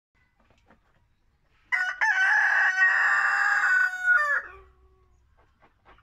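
A rooster crowing once, starting just under two seconds in: a short opening note, a long held middle, then a falling end.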